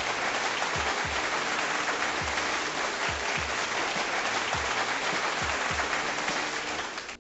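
Crowd applause over music with deep, falling kick-drum hits, dropping away near the end.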